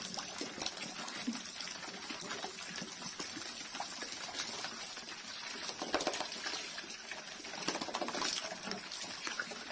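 Water from a hose splashing into a tyre trough while a crowd of pigs slurp and chew the wet feed in it, with many small wet clicks and splashes.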